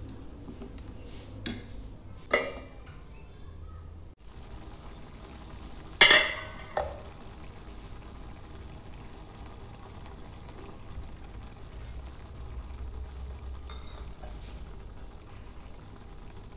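A metal spoon stirring noodles in a metal kadai, with a few sharp clanks of metal on the pan, the loudest about six seconds in, over the steady hiss of the simmering broth.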